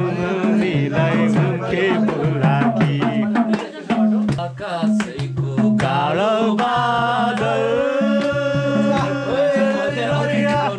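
Music: a song with a sung melody over a steady drum rhythm.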